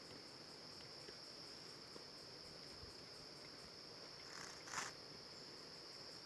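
Steady high-pitched chorus of crickets, one unbroken shrill band. A brief rustle about four and a half seconds in is the loudest moment.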